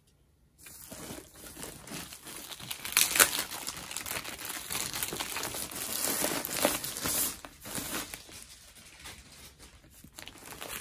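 Clear plastic wrap crinkling and rustling as a rolled diamond-painting canvas is handled and unwrapped. It starts about half a second in, is loudest around three seconds in, and thins out near the end.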